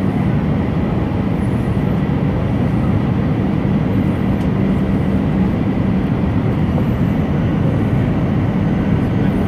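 Airbus A319 cabin noise on the landing approach, heard from a window seat beside the engine: the steady drone of the jet engine and the airflow, with a constant low hum and a faint high whine above it.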